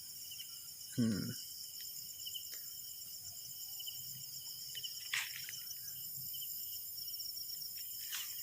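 A steady chorus of night insects, several high, pulsing trills overlapping. About a second in comes one short, low vocal sound that falls in pitch.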